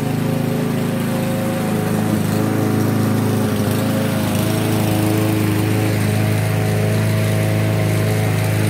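Walk-behind gasoline lawn mower running steadily while being pushed across grass. It grows a little louder about two seconds in as it comes close.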